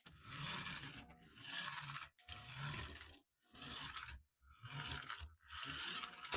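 Toy remote-control car's small electric motor and plastic gearbox running in repeated bursts of about a second each, as the throttle is pressed and let go about five times.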